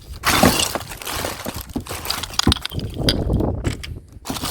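Junk clattering and clinking as it is rummaged through by hand, with small pieces of scrap knocking together in a string of quick, sharp knocks.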